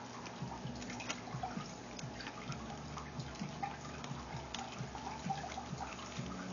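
Bubble wrap and plastic bendy straws crinkling and crackling in irregular small clicks as hands fold and tuck the edges of the panel, over a low steady hum.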